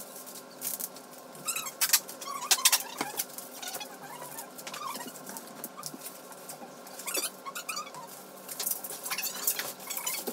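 Plastic bags rustling and crinkling in short, irregular bursts as they are handled, loudest about two to three seconds in.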